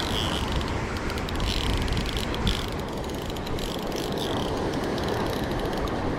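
Spinning reel cranked in while fighting a hooked fish: a rapid run of ticking from the reel, over the wash of surf.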